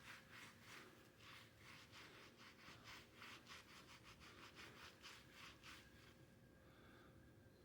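Faint, quick back-and-forth rubbing of a wet paper towel over the freshly spray-painted surface of an AR-15, wiping off soap, at about three strokes a second; the rubbing stops about six seconds in.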